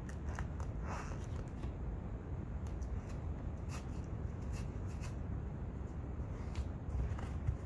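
A towel rubbing and wiping cleaner off an RC car tire and rim, a series of short, soft scuffing strokes.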